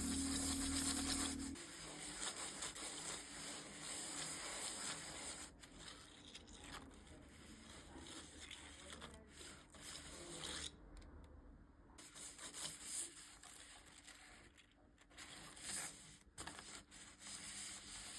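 3D-printed plastic fidget toy being worked in the hand: parts rubbing and sliding against each other, with a few sharp clicks. Music plays in the first second or so.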